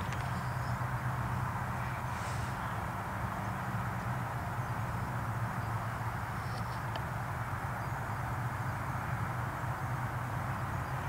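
Steady outdoor background noise: a constant low hum under an even hiss, with a few faint high ticks.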